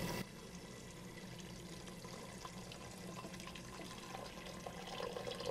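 Water pouring from a glass pitcher into a stainless steel pressure cooker pot, a faint steady trickle.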